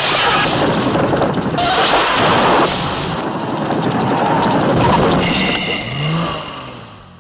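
Car tyres screeching and grinding on the road in a film car-chase sound mix, the noise dying away near the end as the car comes to a stop.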